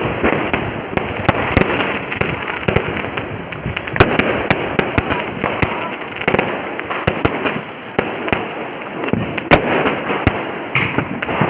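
Diwali firecrackers going off without pause: a dense crackle of small bangs, with louder single cracks scattered irregularly through it.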